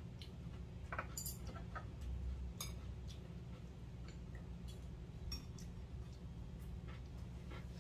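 Metal chopsticks and spoons clicking and clinking against bowls and plates during a meal, several short sharp clicks scattered over the seconds, over a low steady hum.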